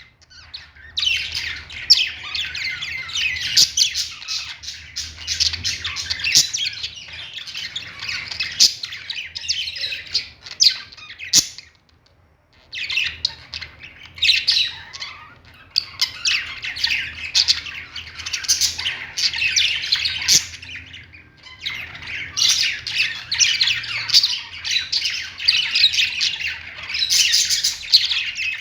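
Birds chirping and squawking, many short high calls overlapping in a dense chatter that stops briefly about twelve seconds in and dips again about twenty seconds in.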